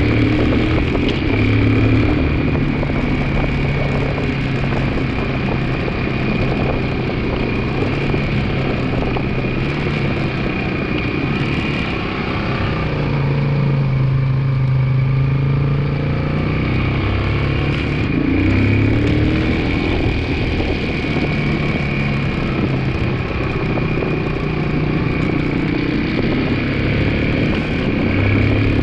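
A 2002 Yamaha 225 motorcycle engine running under way, its revs rising and falling several times, with a steady high whine over it. The bike has a noise that the owner suspects comes from the clutch or transmission.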